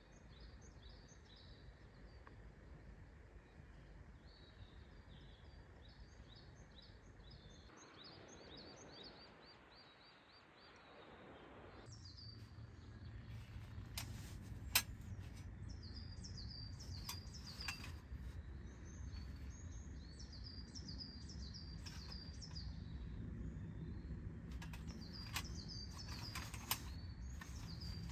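Small birds chirping in quick runs of short high notes over a steady low outdoor rumble that grows louder about halfway through, with a few sharp clicks in the second half.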